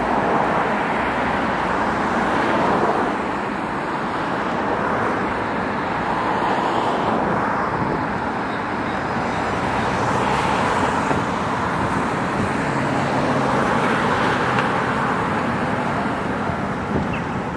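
City street traffic: cars passing one after another, their engine and tyre noise swelling and fading every few seconds.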